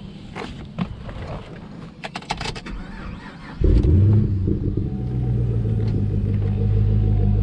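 A 2010 Chevrolet Camaro SS's 6.2-litre V8 cold-started: a few clicks, then the engine catches about three and a half seconds in with a brief rev flare and settles into a steady idle.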